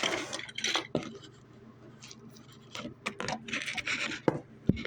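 Handling noise: irregular scrapes, rustles and light clicks of objects being moved about close to a phone's microphone, with a sharper knock near the end.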